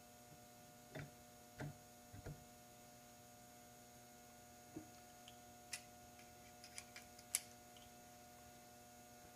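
Faint, scattered clicks and taps of small parts being handled and fitted on a scooter's propeller clutch assembly, with a few dull knocks early on and sharper clicks later, over a steady electrical hum.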